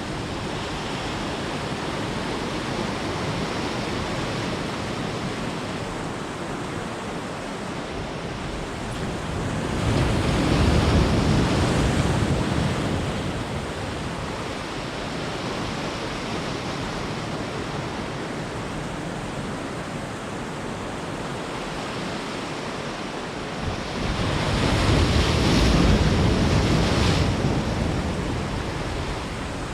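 Ocean surf washing in steadily, with two bigger waves breaking louder about ten and twenty-five seconds in, and wind on the microphone.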